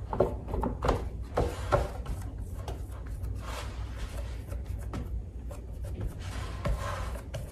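Hands pressing and rubbing crumbly butter-and-flour crust dough into a metal baking pan, giving soft, irregular rubbing and scraping sounds.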